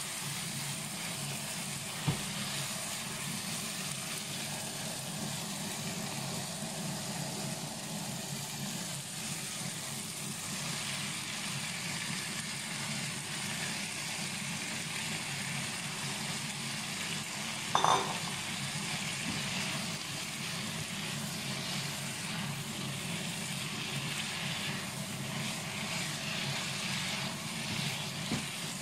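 Onions, tomatoes and then sliced bitter melon sizzling in a nonstick frying pan as they are stirred with a spatula, over a steady low hum. A small knock comes early and a sharper clink with a brief ring a little past halfway.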